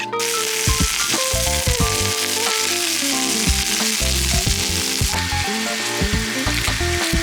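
Food sizzling hard in a hot pan, a dense steady hiss that starts suddenly, under lo-fi background music.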